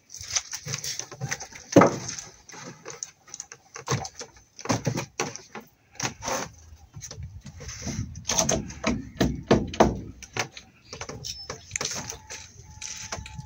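Hammer blows nailing the timber boards of wooden formwork for a concrete beam: irregular sharp knocks, the loudest about two seconds in.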